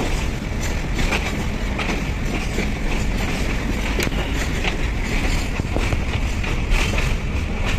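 Train running along the track: a steady rumble with irregular clicks of the wheels over the rails.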